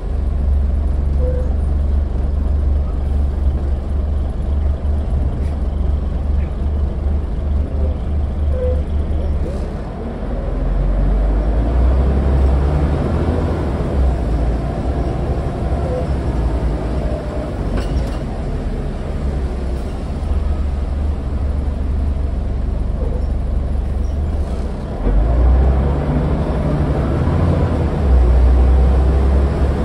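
Scania N94UD double-decker bus's five-cylinder diesel engine heard from inside the lower-deck saloon while the bus drives: a low rumble that swells and eases with acceleration, growing louder in steps near the end, with a few faint interior rattles.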